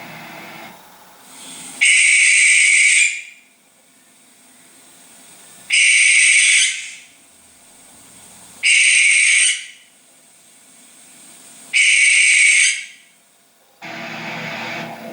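Barn owl screeches: four harsh, hissing screams, each lasting about a second, a few seconds apart.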